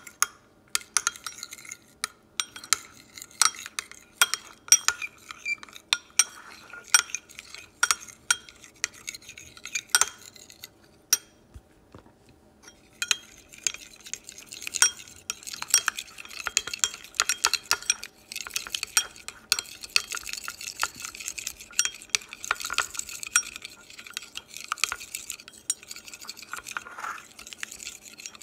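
Metal fork stirring thick ketchup and mayonnaise in a glass bowl, clinking and scraping against the glass. Irregular clinks at first, a brief pause a little before halfway, then faster, denser scraping and clinking.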